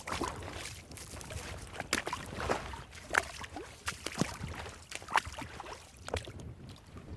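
Creek water gurgling and trickling, with a quick, irregular string of sharp plinks and small splashes.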